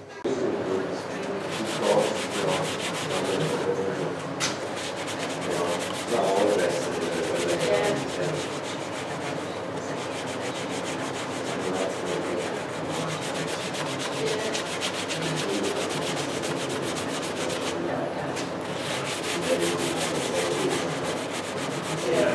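Wood lathe spinning a turned wooden piece with open spiral arms while a gloved hand holds a pad against it: a steady rubbing hiss with a fast, even flutter.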